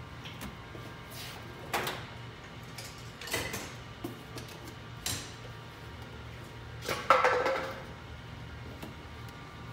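Several sharp knocks and clatters of objects being handled, about four in all, the loudest about seven seconds in with a short ringing tail, over a steady low hum.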